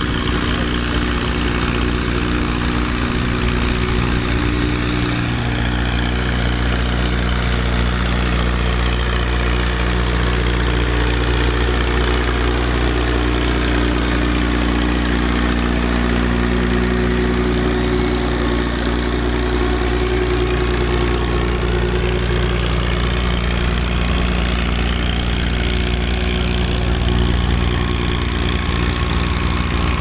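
Fiat 615 DT tractor's diesel engine running steadily under load while pulling a three-furrow plough through the soil.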